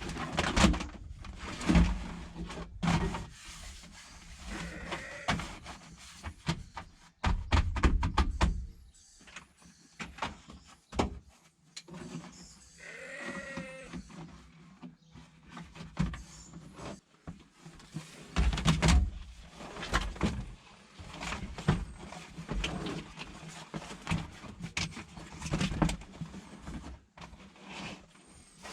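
Irregular knocks, clunks and clicks, with a short wavering call about halfway through.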